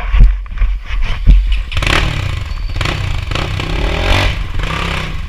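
Dirt bike engine running, then revved up and down several times from about two seconds in, over a low rumble.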